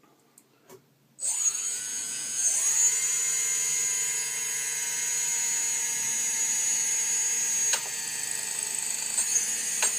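Electric motors of an IFLY radio-control quadcopter spinning up about a second in, with a second rise a moment later, then running with a steady high whine. A sharp click with a slight drop near the end of the run and brief dips near the end, the kind of cut-out the owner blames on a poor bullet connector between speed controller and motor.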